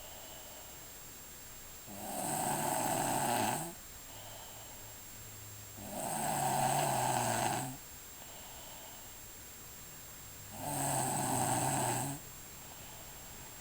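Very loud snoring from a sleeper: three long rasping snores, each about two seconds, coming roughly every four and a half seconds.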